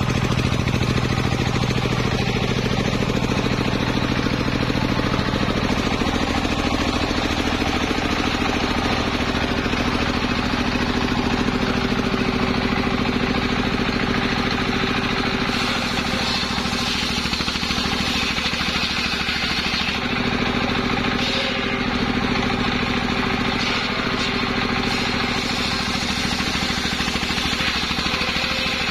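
Engine of a mobile circular sawmill running steadily, belt-driving a large spinning circular saw blade. A brighter hiss joins from about halfway through.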